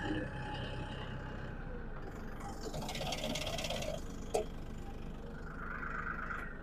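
Massey Ferguson 1835E compact tractor's diesel engine running steadily, with a brief hiss near the middle and a single sharp click about four seconds in.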